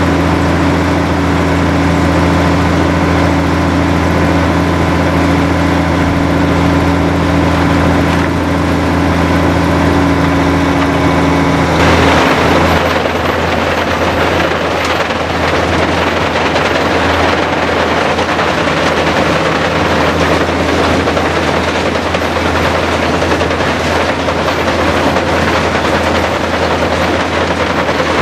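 Rexworks Maxigrind 460G grinder, driven by a Cat 3406 diesel, runs with a steady engine tone. About twelve seconds in, wooden pallets reach the grinding mill and a dense, rough din of wood being ground takes over, the engine now working under load.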